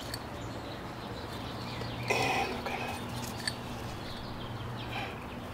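Hands pressing and scraping loose garden soil around a newly planted corm: faint rustles and small ticks over a steady low hum, with a brief louder sound about two seconds in.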